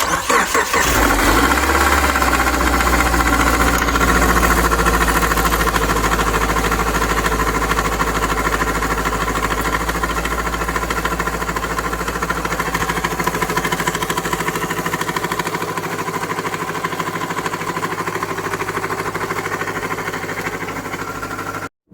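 A vehicle engine cranking and catching, then idling steadily with a knock in it.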